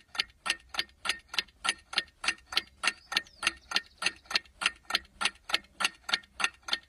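Ticking sound effect like a fast clock, an even run of sharp ticks at about four a second.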